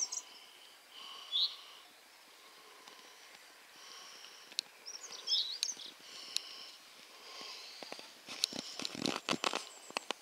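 Small songbirds chirping and whistling, with short rising chirps about a second and a half in and again about five seconds in. Near the end a run of crunching footsteps on a gravel path.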